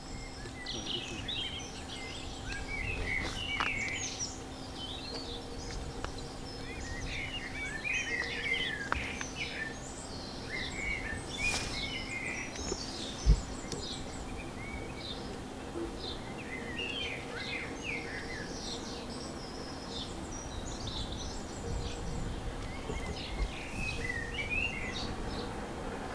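Songbirds chirping and trilling, with a faint steady low hum underneath and a single sharp low thump about halfway through.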